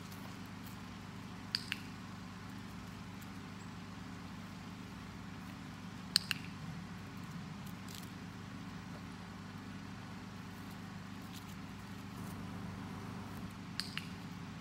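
A dog-training clicker clicked three times, a few seconds apart, each a quick double click of press and release, marking the dog's correct behaviour. A steady low hum lies underneath.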